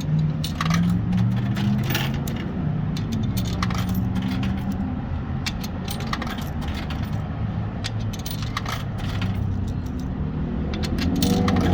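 Coins clinking one after another as they drop through a vending machine's coin mechanism, over a low, steady vehicle-engine hum.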